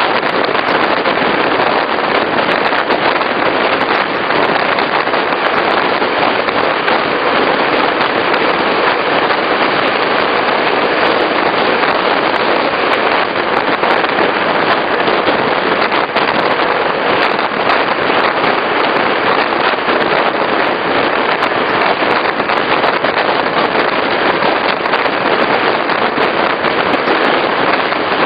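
Regional train in motion: a steady, loud running noise with a dense crackle of clicks and rattles.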